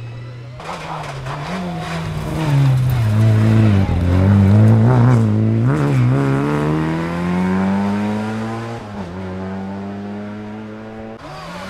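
Rally car engine at full effort on a special stage: the revs drop and rise again several times through gear changes as it goes by, loudest about four to five seconds in, then climb steadily in one long pull as it accelerates.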